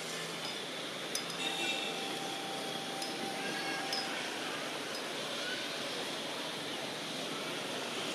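Steady outdoor background noise with a few faint clicks and short, faint high chirps, and no clear nearby source.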